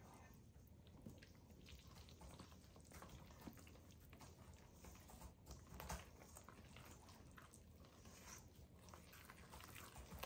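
Faint, irregular stirring sounds of a silicone whisk mixing wet pumpkin pancake batter into flour in a stainless steel bowl.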